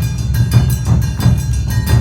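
Awa Odori festival band playing: taiko drums and a struck metal hand gong beating a steady, driving rhythm of about three strokes a second, with thin held high tones over it.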